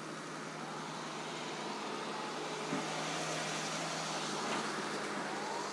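Hydraulic excavator's diesel engine running steadily while it works, with faint rising whines twice and a single clunk about two and a half seconds in.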